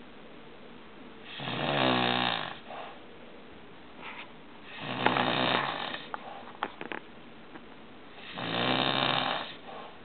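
Snoring: three loud, rasping snores about three and a half seconds apart, each lasting a little over a second, with quiet breathing between them.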